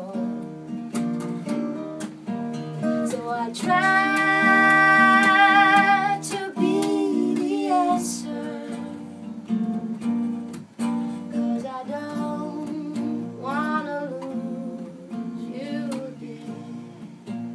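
Unplugged duo of acoustic guitar and acoustic bass guitar playing a pop ballad, with a woman's voice singing over it and holding one long high note with vibrato about four seconds in.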